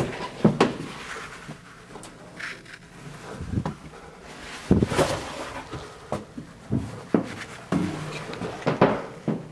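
Irregular footsteps, knocks and bumps from someone walking with a handheld camera, one or two a second.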